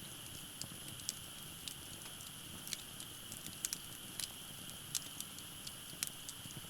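Wood fire crackling in a Uniflame firewood-grill fire pit: irregular sharp pops and snaps, a few of them louder, over a steady low hiss and a faint steady high-pitched tone.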